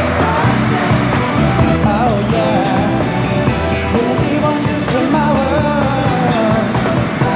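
Live pop-rock band performance: a male lead vocalist singing a melody into a microphone over the backing band with drums.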